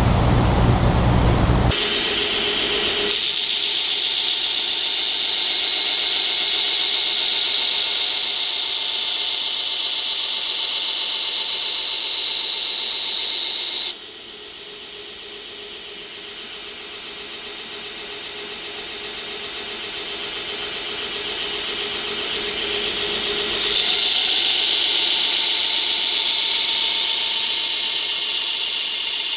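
Belt grinder running with a forged damascus steel blade held against the belt, grinding off the forge scale: a steady motor hum under a loud high grinding hiss. The grinding stops for about ten seconds midway, leaving the grinder running, then starts again.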